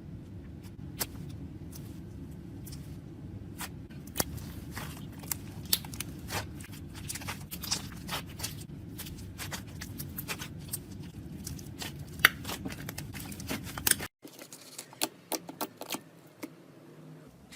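Slime being squeezed and pressed by hand, making many small sticky clicks and crackling pops over a steady low background noise. About fourteen seconds in, the sound cuts to another slime clip with fewer, sparser pops.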